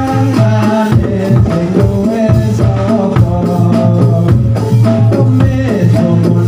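Live kubro siswo music: a group of men singing together into microphones over drums and percussion, with a steady beat.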